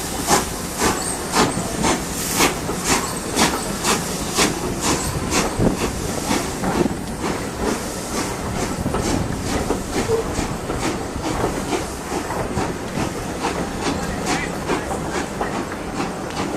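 B12 4-6-0 steam locomotive pulling away, its exhaust beats coming about twice a second and quickening, over a steady hiss of steam.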